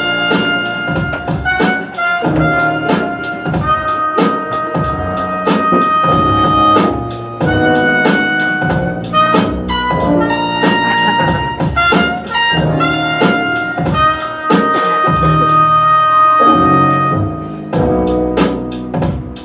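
Jazz-style music: held brass notes over a steady drum beat.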